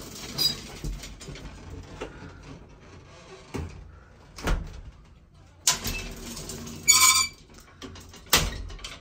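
Vintage Otis elevator's metal scissor gate and outer swing door being shut by hand: a series of separate clanks and knocks from the gate, door and latch. About seven seconds in comes a ringing metallic clang, one of the loudest.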